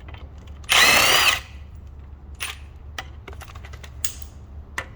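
A power drill runs once, briefly, at about two-thirds of a second in, its motor pitch rising and then dipping, while a bolt is worked to lower the front differential. A few light metallic clicks follow.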